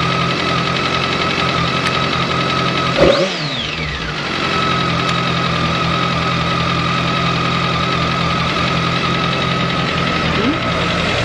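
BMW K1200S inline-four motorcycle engine idling steadily. About three seconds in it is revved once, the pitch climbing quickly and falling back within about a second and a half. A shorter blip follows near the end.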